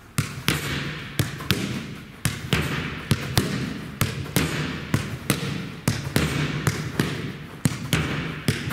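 Soccer ball struck in quick one-touch passes and rebounding off the training walls, about two to three sharp thuds a second, each echoing briefly around the hall.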